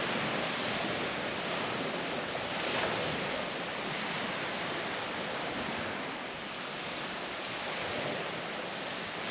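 Waves washing on a beach: a steady rush of surf that swells gently now and then.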